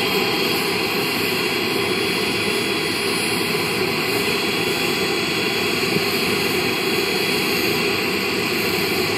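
Twin ATJ-170ti model jet turbines running steadily with the model at a standstill: an even rush with a high steady whine.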